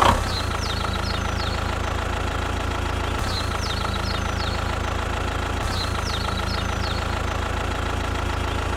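Engine running steadily with an even hum, joined a few times by short groups of high, falling chirps.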